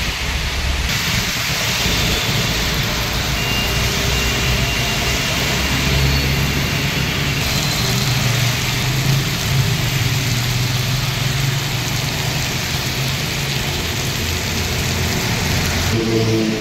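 Traffic driving through rain on a wet road: a steady hiss of tyres on water and falling rain, with a low vehicle engine drone through the middle stretch.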